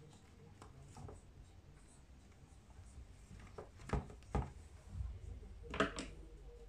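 Hands rubbing and handling a curly wig on a mannequin head, with a scratchy rustle throughout. A few sharp soft knocks come about four seconds in and again near the end.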